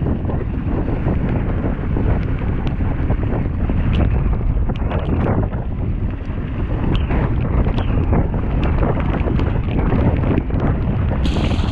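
Wind buffeting the camera microphone over the rumble and rattle of mountain-bike tyres rolling fast down a gravel track, with scattered clicks and knocks from the bike. A brief high-pitched sound comes right near the end.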